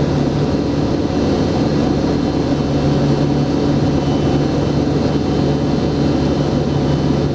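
Aircraft engines droning steadily with a low, even hum.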